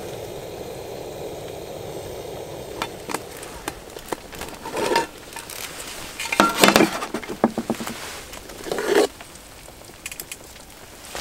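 Aluminium mess tin of freshly cooked rice being handled: clicks, knocks and metal clattering as the steaming tin is lifted off the camp stove and its lid taken off, loudest about seven seconds in. A steady rushing noise fades out in the first three seconds.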